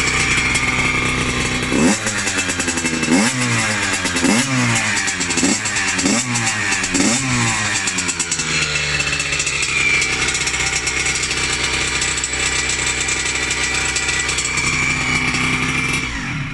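Yamaha YZ80 single-cylinder two-stroke engine running after a full rebuild: it idles, is revved sharply about six times in quick succession, then settles back to a steady idle.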